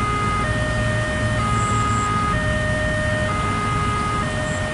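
Railway level-crossing warning alarm sounding steadily, an electronic two-tone signal that switches between a lower and a higher pitch about once a second, over a low rumble.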